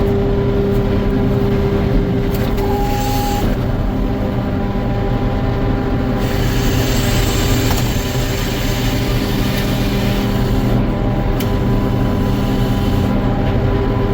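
Sawmill machinery running steadily: a constant low drone with a steady hum, and a brighter hiss that strengthens from about six to ten seconds in as the saw and carriage work a white pine log.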